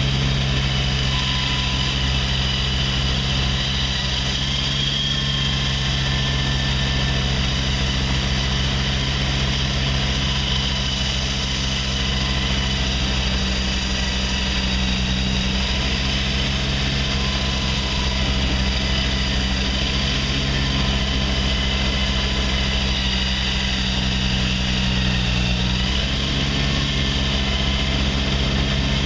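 Concrete-cutting machinery running steadily: a large engine's even drone with a thin, higher whine above it, its pitch shifting slightly a couple of times.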